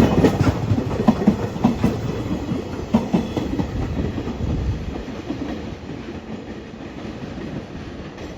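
Freight train wagons rolling past, their wheels knocking rhythmically over the rail joints in a fast clickety-clack that grows fainter over the last few seconds as the train moves away.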